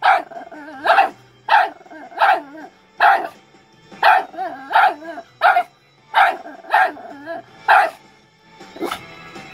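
Small dog barking over and over, about a dozen sharp barks spaced well under a second apart, stopping near the end, with music playing underneath.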